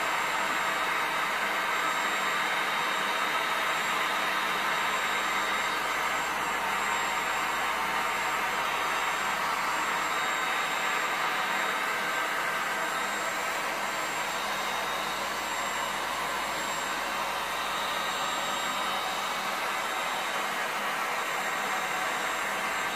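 Handheld electric heat gun blowing hot air over wet epoxy resin, running steadily as a rushing of air with a faint high whine.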